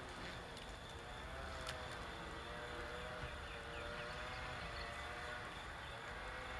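Faint outdoor ambience: a steady low rumble with the wavering hum of a distant engine.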